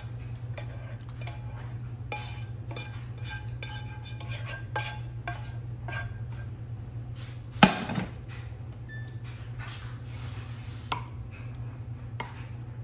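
A slotted wooden spatula scrapes thick chicken Alfredo sauce out of a nonstick skillet into a ceramic baking dish, with many light scrapes and clinks. About halfway through, the skillet clanks down once onto the stovetop. A steady low hum runs underneath.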